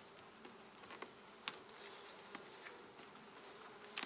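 Honeybees humming steadily and faintly from an open hive, with a few sharp clicks of a metal hive tool against the wooden frames, the loudest near the end.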